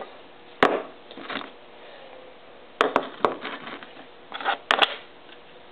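Sharp clicks and knocks of a handmade steel barrel padlock and its parts being handled and set down on a workbench. One knock comes about half a second in, three come close together around three seconds, and two come near the end, with softer scraping between them.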